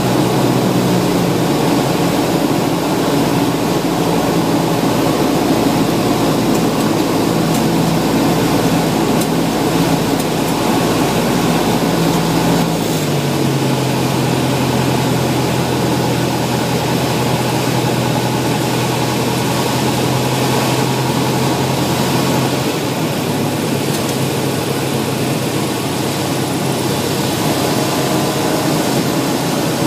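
Small airplane's engine and propeller droning steadily. About 13 seconds in the engine tone steps down in pitch and holds there, as power is reduced for the landing.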